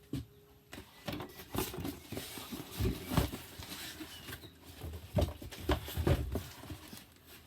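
Cardboard boxes of vinyl records being moved and opened by hand: irregular knocks, thuds and rustling of cardboard.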